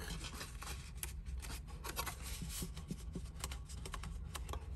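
Textured cardstock being handled, a flap tucked in and pressed into place: a run of small clicks, taps and paper rustles.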